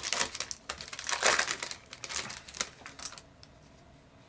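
Foil trading-card booster pack wrappers crinkling and crackling as they are handled, in rapid bursts for about three seconds, then dying down to faint rustling.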